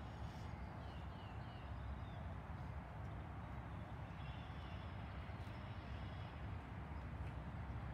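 Birds chirping, short falling chirps in runs of two or three, over a steady low rumble of wind on the microphone.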